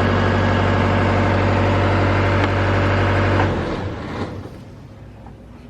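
A motor or engine running steadily with a low hum, then winding down and stopping about three and a half seconds in.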